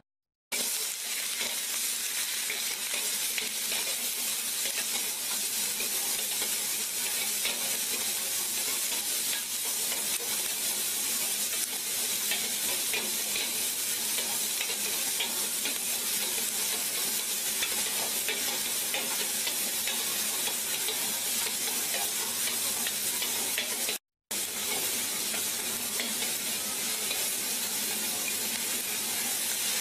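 Vegetables sizzling and crackling in the steel wok of an automatic stir-fry machine while its mechanical stirring arm tosses them. The sizzle starts about half a second in, with a brief gap about three-quarters of the way through.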